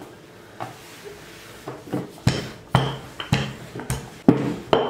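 Long wooden rolling pin rolling out dough on a hard countertop, knocking at each back-and-forth stroke, about twice a second from about two seconds in.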